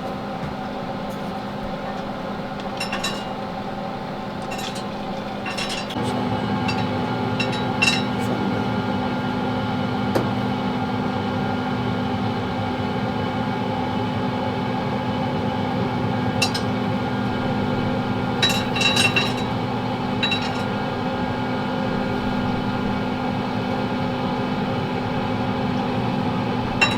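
Yoder YS640S pellet smoker running at startup: a steady motor hum from its fan and auger that steps up and gets louder about six seconds in. Scattered light clinks from pellets dropping into the burn pot.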